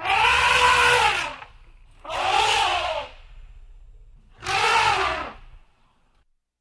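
Elephant trumpeting: three brassy calls, each about a second long and rising then falling in pitch, with a low rumble under them.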